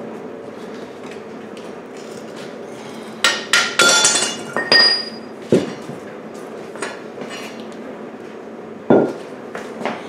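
Sharp metal clanks with a bell-like ring, bunched together about a third of the way in, then single knocks later on. The source is the torch-cut steel starter ring gear coming off the Ford 9N flywheel and striking the concrete floor.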